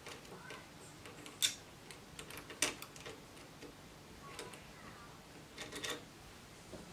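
Sparse light metal clicks and ticks of an Allen key and a small steel nut being worked by hand onto a screw in a 3D printer's filament sensor bracket. A few single sharp clicks, with a short cluster of them near the end.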